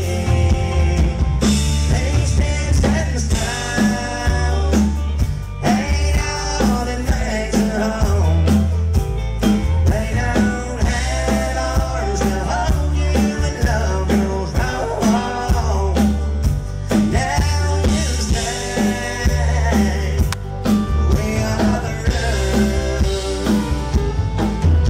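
Country band playing live: a man singing lead while strumming an acoustic guitar, over bass and a drum kit keeping a steady beat.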